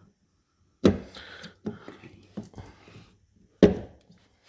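Two sharp knocks, about a second in and near the end, with lighter clicks and clatter between, as parts or tools are handled at the car door.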